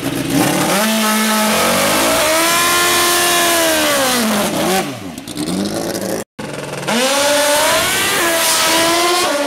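Drag-racing motorcycle engine revved hard through a rear-tire burnout: the pitch climbs, holds high for a couple of seconds, then falls away. After a brief break about six seconds in, a drag bike's engine revs up again and holds high near the end.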